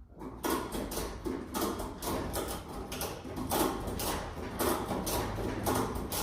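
A hand tool worked in a steady rhythm of short mechanical strokes, about two a second.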